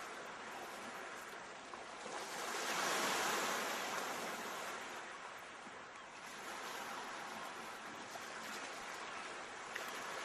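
Sea waves washing in a steady hiss, one wave swelling to its loudest about three seconds in and then easing, with smaller swells later.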